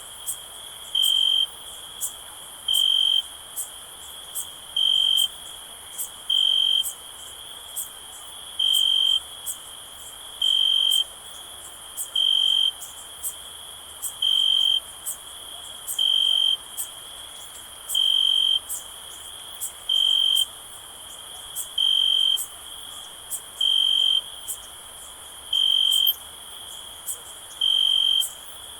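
Crickets chirping: one loud cricket gives a short chirp about every two seconds, over a steady high-pitched background of other crickets trilling.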